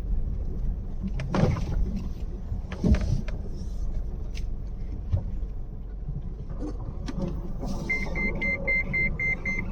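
Car running with a steady low rumble, with a couple of knocks, likely from bumps on a rough, steep track. About eight seconds in, a rapid electronic warning beep starts, about three beeps a second.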